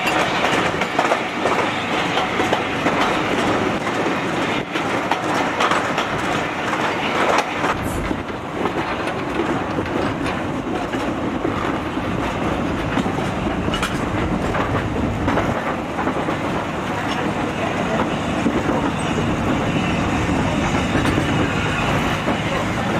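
Railway passenger coach running along the track: a steady rumble with wheels clattering over rail joints.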